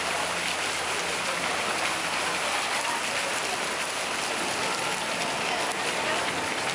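Steady rush of churning water around a round rapids-ride raft as it floats along the ride's water channel.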